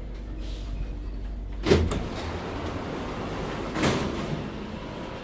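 Metro carriage sliding doors opening: two sudden loud clunks about two seconds apart, over the steady low hum of the stopped train.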